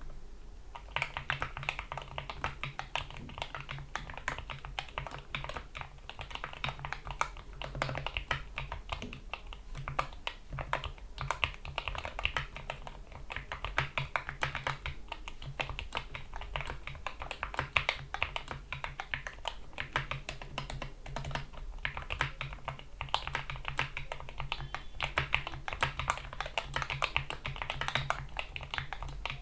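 Continuous fast typing on a GK61 mechanical keyboard with lubricated Gateron Yellow optical switches, PBT keycaps and rubber O-rings under the keys. The dense, uneven key clicks start about a second in.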